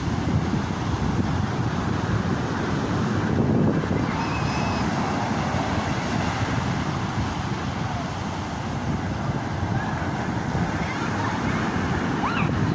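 Atlantic Ocean surf washing onto the beach, a steady rushing roar, with wind buffeting the microphone.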